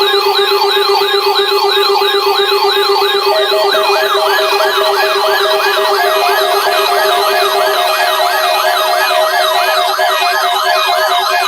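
Several electronic sirens warbling at once, their pitch rising and falling about three times a second over a steady low drone. A second steady tone joins about three seconds in, and the warble grows denser as the layers overlap.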